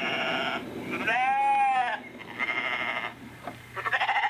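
Recorded sheep and goat bleats, about four calls in a row, played by the sound system through the small built-in speaker of a G-scale model livestock car.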